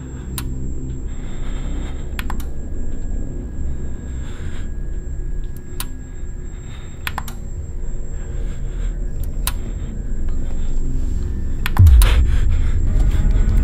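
Horror-film sound design: a steady low drone with scattered sharp clicks and ticks. About twelve seconds in comes a sudden loud, low boom that drops in pitch, followed by a quick flurry of clicks.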